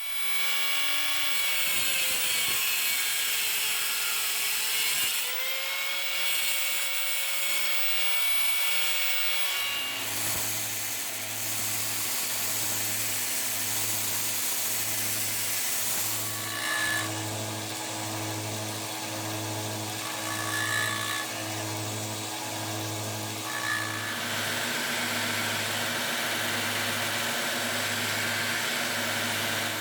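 Small hobby lathe's electric motor running steadily, turning a steel cap screw. About ten seconds in the sound changes to a lower hum that pulses about once a second.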